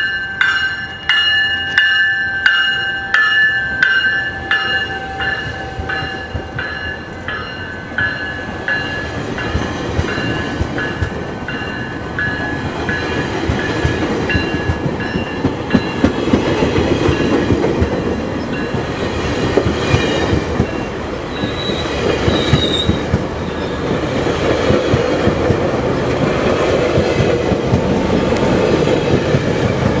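GO Transit commuter train passing with its 200-series cab car leading. A bell rings about twice a second and fades away over the first several seconds as the cab car goes by. Then the rumble and clatter of the bilevel coaches' wheels grows louder toward the end.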